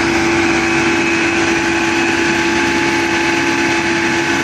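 Engine of a 75 hp farm crawler tractor running steadily as it drives a rear rotary tiller through the soil, with a constant whine over the engine note.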